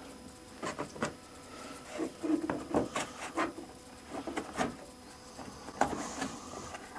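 Scattered light clicks, knocks and scrapes as an insert in a torque screwdriver's storage case is worked loose by hand.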